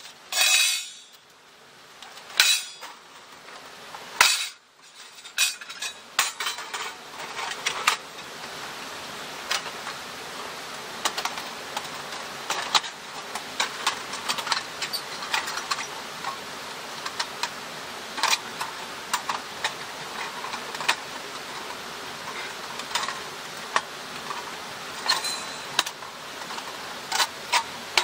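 Thin metal panels of a folding wood stove clinking and scraping against each other as they are unfolded and slotted together, with irregular sharp metallic clicks.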